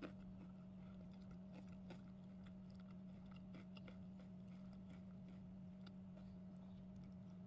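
Faint chewing and small clicks of someone eating a pan-fried tofu-pouch dumpling, over a steady low hum.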